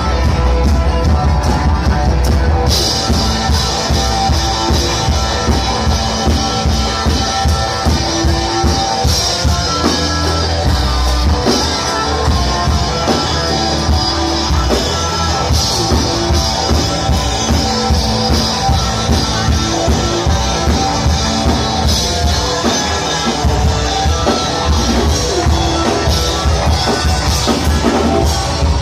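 Live rock band playing loud: electric guitars over a drum kit, the sound growing brighter about three seconds in.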